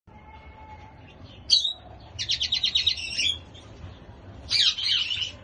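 Small birds chirping and singing: a sharp chirp about one and a half seconds in, a quick run of about nine rapid notes, then a jumbled burst of song near the end.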